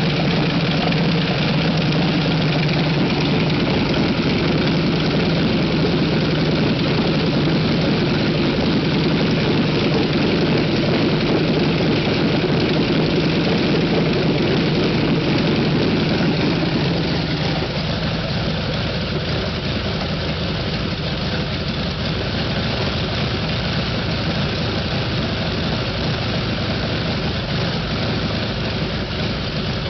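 Jacobs L4MB seven-cylinder radial aircraft engine running steadily on a test run. About seventeen seconds in it settles to a quieter, lower-pitched run and holds there.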